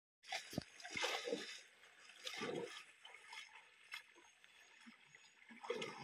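Shallow stream water splashing and sloshing in irregular bursts as a wading man moves his hands and legs through it, with the loudest splashes in the first second and a half.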